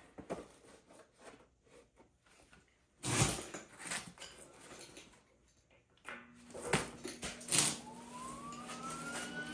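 Clunks and handling noises of tools, then a steady low hum starts and an electric motor's whine rises in pitch and levels off, like a power tool spinning up.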